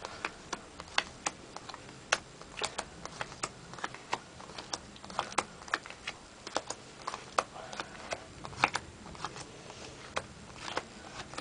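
Playing cards being dealt one at a time onto a carpet: a steady run of light clicks and snaps, about three or four a second, as each card comes off the deck and is laid down.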